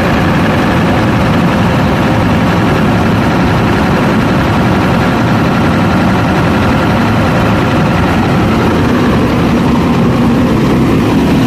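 Scania R580 truck's V8 diesel engine running steadily and loudly at a constant speed.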